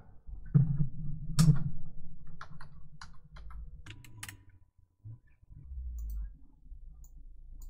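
Typing on a computer keyboard: a run of separate key clicks, the loudest two near the start, with mouse clicks among them.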